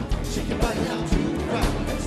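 Live band music with backing vocalists singing into microphones over a steady drum beat.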